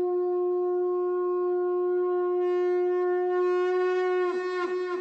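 Conch shell (shankh) blown in one long steady note, its pitch dipping and breaking a few times near the end.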